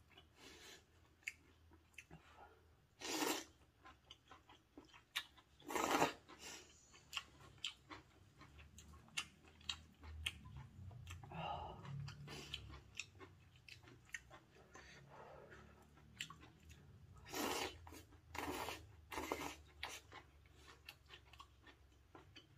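Close-up eating sounds of rose malatang noodles: steady wet chewing and small mouth clicks, with a few louder slurps of noodles, one about 3 s in, one about 6 s in, and three in quick succession near 17 to 19 s.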